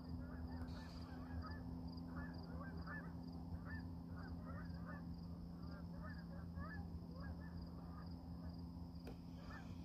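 Faint honking of a flock of geese, many short calls overlapping irregularly.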